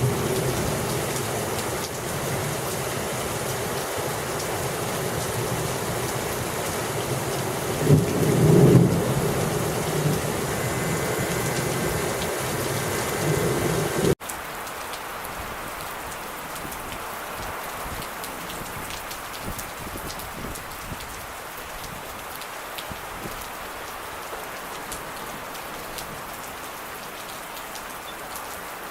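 Steady heavy rain with a loud rumble of thunder about eight seconds in. It cuts off suddenly about halfway through to quieter, steady rain.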